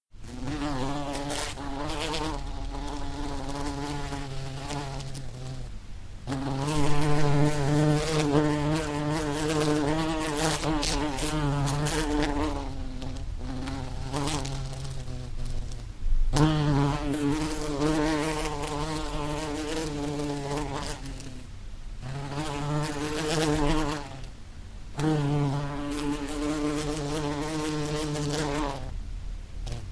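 A bee buzzing in flight: a wavering hum that drops away several times and comes back.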